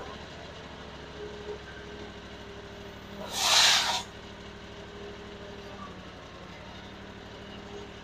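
Mini articulating wheel loader's engine running steadily, with a loud hiss lasting under a second about three seconds in.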